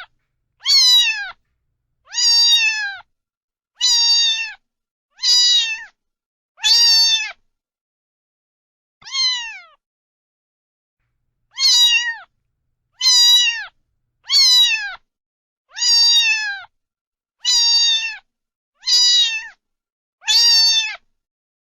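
A cat meowing over and over, about one meow every second and a half, each call dropping in pitch at its end, with a short pause midway broken by one softer meow.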